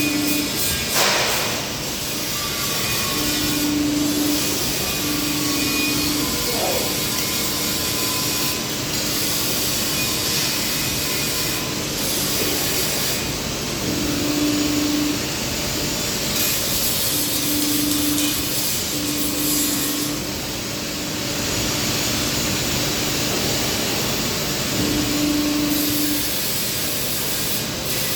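CNC press brake running: steady machine noise, with a low hum that cuts in and out in stretches of a second or so.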